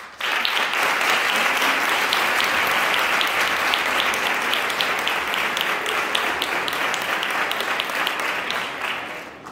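Audience applauding: dense clapping from many hands that breaks out suddenly and holds steady, then fades away near the end.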